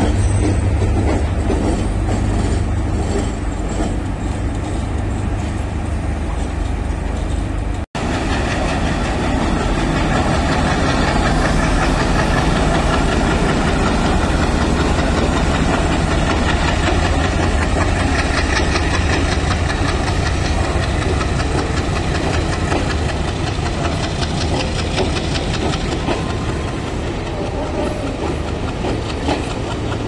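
Diesel trains running through a station: a steady low diesel engine drone, then after a sudden cut about eight seconds in, the continuous rumble and wheel clatter of a diesel-hauled train moving on the rails.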